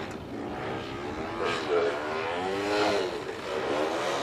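Engine and propeller of a radio-controlled aerobatic model aeroplane in flight, its pitch sweeping up and down as the throttle and the plane's passes change through the manoeuvre.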